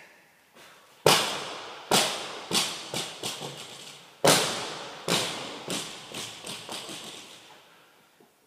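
Barbell loaded with rubber bumper plates dropped from overhead onto a rubber gym floor. It hits with a loud bang and bounces, the bangs coming quicker and fading. A second heavy bang a little over three seconds later sets off another run of fading bounces.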